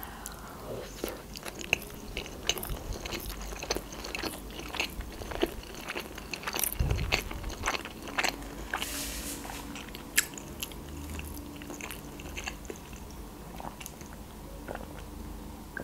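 A person biting into and chewing a fried, breadcrumb-coated sushi roll, with many small irregular crackles and clicks of chewing. Near the end comes a sip from a glass of water.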